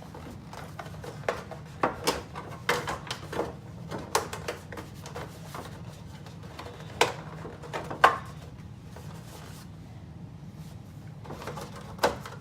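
Cardboard insert being worked into a plastic game board by hand: scattered clicks, taps and scrapes of cardboard and plastic, with a few sharper knocks, the loudest about seven and eight seconds in, over a steady low hum.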